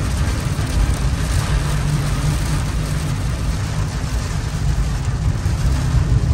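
Steady road and rain noise inside a car's cabin at speed on a wet highway: tyres on the wet road, engine rumble and rain on the windscreen.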